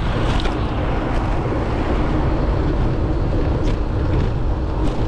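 Steady low rumble of a vehicle moving along a city street, mixed road and engine noise.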